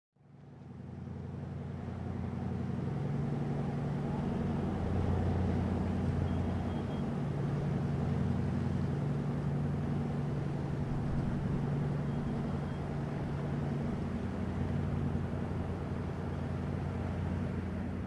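Charter fishing boat's inboard engine running as it motors past, a steady low drone that fades in at the start.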